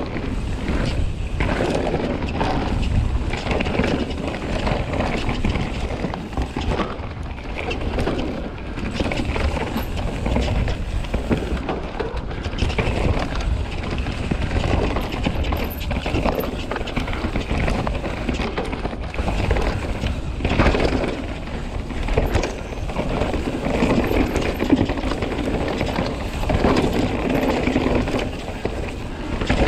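Commencal Meta mountain bike riding down a dry, dusty dirt trail: steady tyre noise on the dirt and the bike rattling over bumps, with wind rumbling on the microphone.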